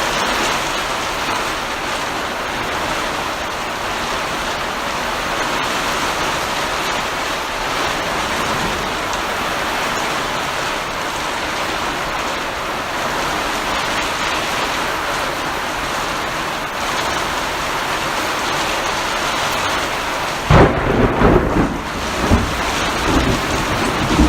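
Heavy rain falling steadily. About twenty seconds in, a loud clap of thunder cracks and rumbles on for three or four seconds.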